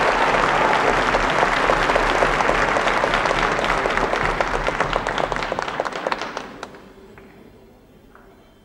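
Audience applauding, many hands clapping, dying away about six and a half seconds in.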